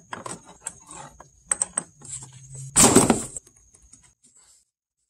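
Wrench clicking against the oil cooler return line fitting at the radiator while it is being loosened: a run of sharp metallic clicks, with a louder scraping clatter about three seconds in.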